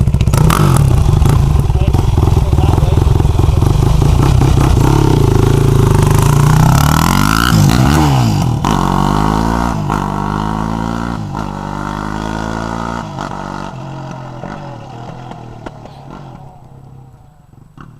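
2004 Yamaha YFZ450 quad's single-cylinder four-stroke engine being ridden. It runs loud and close, revs up and down through the gears, then fades away. A few sharp pops are heard, which the owner puts down to it needing to be jetted.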